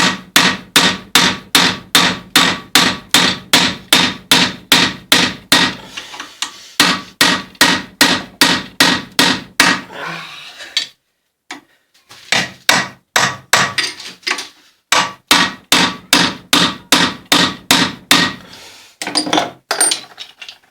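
Repeated hammer blows on the steel flange washer and spindle of an angle grinder's gearbox held in a vise, about two to three ringing strikes a second. The blows stop for about a second near the middle, then resume and trail off near the end. The washer is being knocked free after the cutting disc jammed it by over-tightening.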